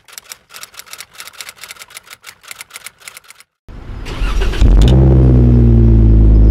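A rapid run of clicks, several a second, like a typing sound effect, for the first three and a half seconds. Then a Jeep Wrangler's V6 is cranked for about a second and starts, running loud through an Injen dual polished-chrome aftermarket exhaust, its revs dropping from the start-up flare toward idle.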